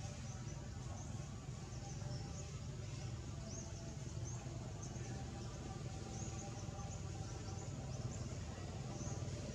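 Outdoor ambience: many short, faint, high-pitched chirps scattered throughout over a steady low rumble.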